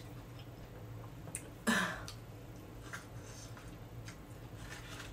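A person eating quietly: a few faint clicks and one short throaty vocal sound about two seconds in, over a steady low hum.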